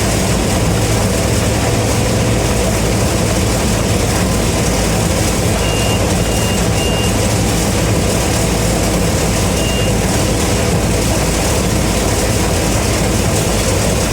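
Combine harvester running steadily under load while picking corn, a loud, even machine noise with a deep hum. Three short high beeps sound about six seconds in, and another near ten seconds.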